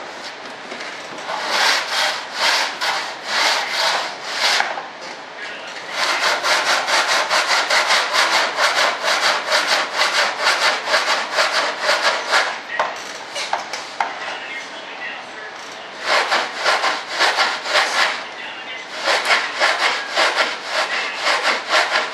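Coarse 36-grit sandpaper being rubbed back and forth by hand along the edge of a model aircraft panel, in quick rasping strokes, about three or four a second. The strokes come in four runs with short pauses between them.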